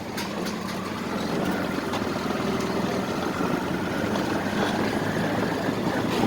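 An engine running steadily with a low hum, over a background of outdoor noise.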